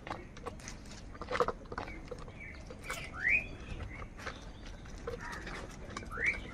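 Crows calling: scattered short, harsh calls and two brief rising calls, one about halfway through and one near the end.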